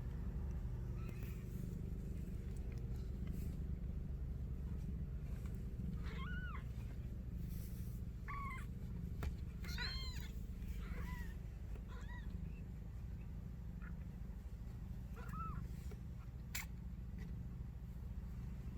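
Kitten mewing: about seven short, high-pitched mews, starting about six seconds in, over a steady low hum.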